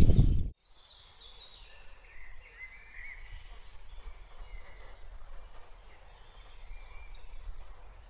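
Wind buffeting the microphone on a moving bike, cut off abruptly about half a second in. After it come faint songbird chirps and short trills.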